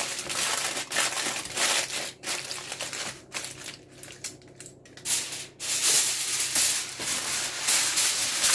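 Aluminium foil crinkling and crackling as it is crumpled and pressed tightly around a joint of lamb by hand. It goes quieter for a couple of seconds around the middle, then louder again.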